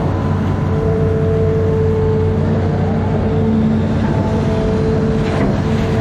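Amphibious excavator's diesel engine running steadily under load, with whining tones that shift in pitch as the machine works. A short click about five seconds in.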